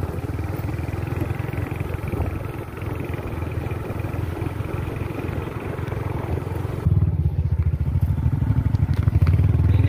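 Motorcycle engine running while being ridden, a fast even pulsing with road and wind hiss above it; about seven seconds in the engine gets louder and the hiss fades.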